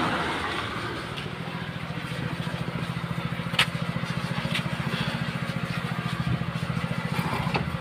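An engine running steadily at idle, a fast even throb, with a few sharp metallic clicks over it, the loudest about three and a half seconds in.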